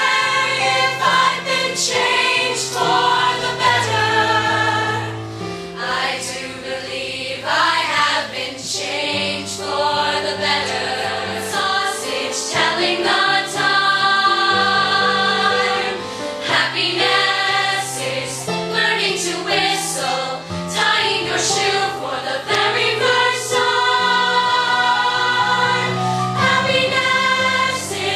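A teenage stage ensemble, mostly girls' voices, singing show tunes together as a chorus over instrumental accompaniment. One song gives way to another partway through.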